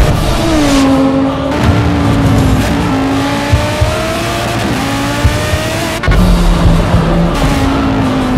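Audi R8 LMS race car's V10 engine pulling hard, its note climbing and then dropping with each of several upshifts; the sound changes abruptly about six seconds in.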